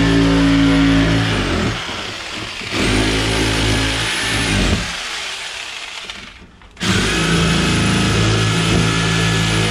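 Corded hand-held rotary power tool with a cutting bit, boring into fiber-cement (Hardie board) siding. It runs in three bursts, each with a high whine rising as the motor spins up and falling as it winds down.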